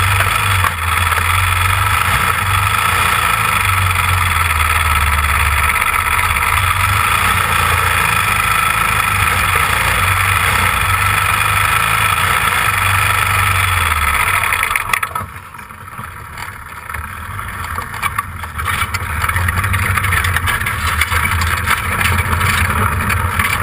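The onboard race car engine runs at low speed through the pits. About fifteen seconds in, the engine noise drops off sharply, leaving a fainter, uneven engine sound.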